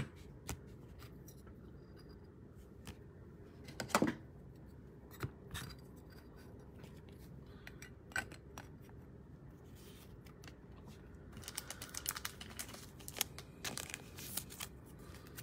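Hands handling trading cards and clear plastic card holders: scattered light clicks and taps, the sharpest about 4 s in, then a denser stretch of crackling, rubbing card-and-plastic noise near the end.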